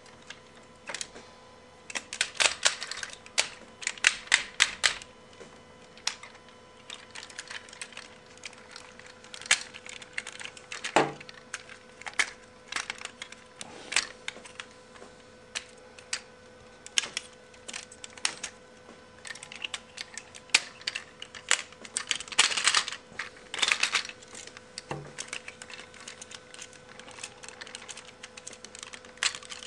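Takara D-98 reissue Transformers G1 Sixshot figure's parts clicking and clattering as it is transformed by hand, with bursts of rapid clicks as joints and panels are snapped into place.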